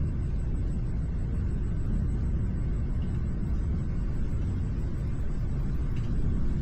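Thunderstorm at night: a low, steady rumble with no sharp thunderclap.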